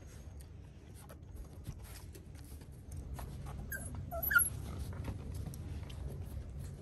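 Chow chow puppies playing: a few short, high whimpers about four seconds in, over light clicks and scuffles of paws on wooden deck boards.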